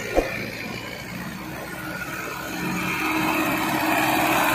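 Mahindra Arjun tractor's diesel engine running steadily, growing louder over the last couple of seconds. A single sharp knock sounds just after the start.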